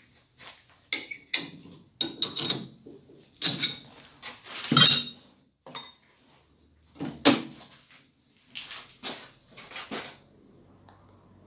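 A string of metal clanks and knocks, some ringing briefly, as a workpiece is unclamped and lifted off a lathe; the loudest knock comes about halfway through.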